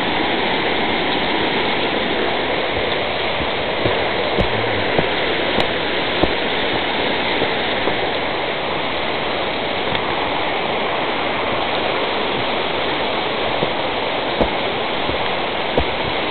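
Waterfall rushing steadily, with a few short knocks scattered through it.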